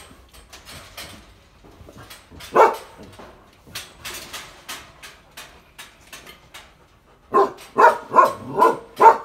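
Young male Rottweiler barking from a metal-barred kennel, asking to be let out to play: one bark about two and a half seconds in, then a quick run of about six barks near the end.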